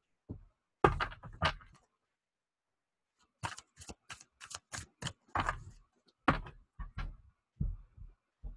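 Tarot cards being shuffled and handled over a tabletop: a quick cluster of card slaps about a second in, then a run of short slaps and taps, two or three a second.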